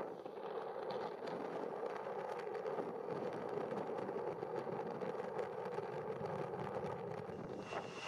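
Embraer E190 airliner's twin turbofan engines running as it rolls out after touchdown: a steady, even jet rush.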